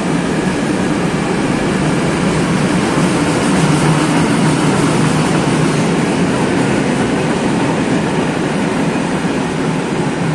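Freight train of rail tank wagons rolling past close by without stopping: a steady, loud rumble of steel wheels on the rails.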